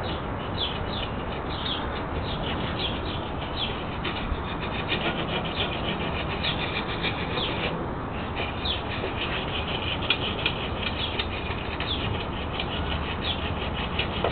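Small birds chirping over and over, short quick calls throughout, above a steady background hiss.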